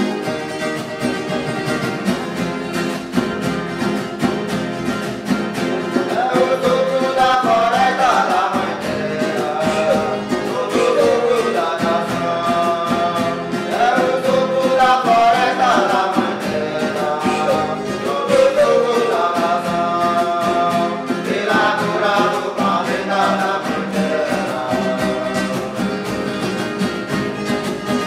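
Huni Kuin song with guitars playing throughout. Singing voices come in in melodic phrases about seven seconds in and recur every few seconds.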